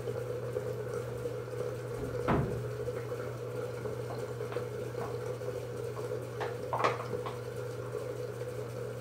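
Knocks and clatters of things handled at a bathroom sink during tooth brushing, over a steady low hum. The biggest is a thump about two seconds in, and there is a sharp clack or two near seven seconds.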